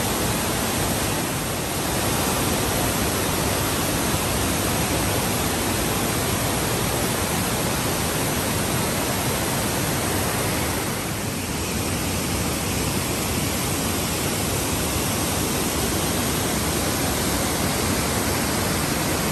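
Steady rush of water from Dingmans Falls, a 130-foot waterfall cascading over rock ledges into its plunge pool, dipping slightly in loudness twice.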